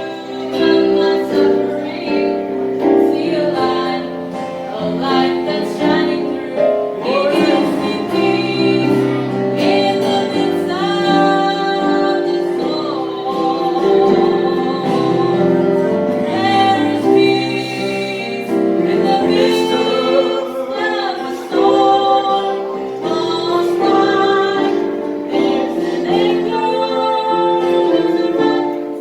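A gospel song sung mainly by a woman's voice over instrumental accompaniment.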